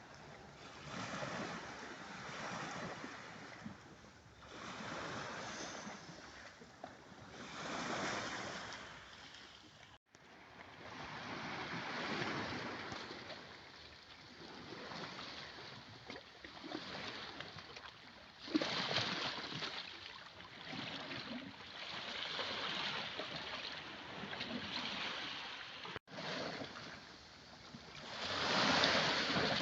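Sea waves washing onto the shore, the surf swelling and falling away every three to four seconds, with one sharper break about two-thirds of the way through. The sound drops out for an instant twice.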